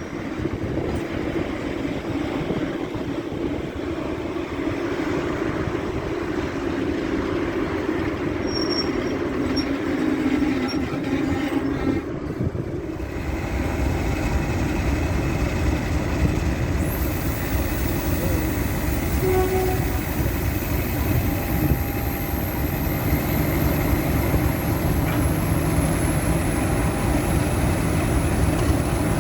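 Class 50 diesel locomotives' English Electric V16 engines running. About halfway through the sound changes abruptly to a deeper, steadier engine note, with a thin very high whine sliding slowly down in pitch over the second half.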